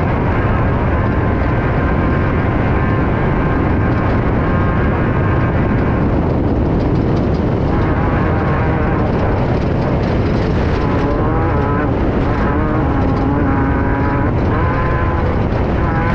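Class 5/1600 off-road race car's air-cooled 1600cc Volkswagen flat-four engine running hard, heard from inside the car. Its pitch rises and falls repeatedly with throttle and gear changes, most clearly in the second half, over a steady rush of noise.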